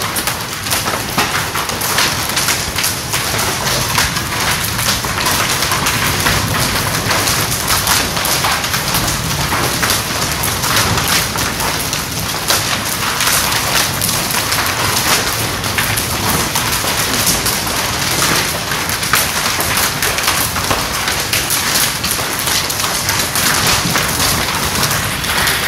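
Hail falling steadily: a dense, unbroken stream of sharp ticks and clicks from hailstones striking hard surfaces, over a constant hiss.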